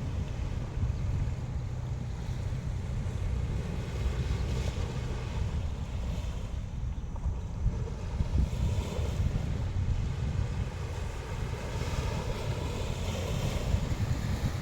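Sea waves washing on the shore, with wind buffeting the phone's microphone in a steady low rumble. The surf swells a little about four seconds in and again near the end.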